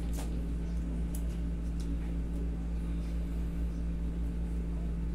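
A steady low machine hum, with a few faint brief clicks about a quarter second, one second and two seconds in.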